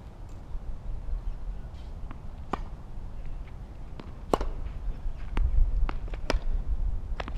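Tennis balls being struck and bouncing on a hard court: several sharp, irregular knocks, the loudest about four seconds in. Wind rumbles on the microphone, growing stronger in the second half.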